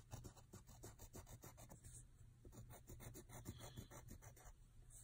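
Faint pencil scratching on paper in many short, quick strokes, drawing a zigzag row of teeth.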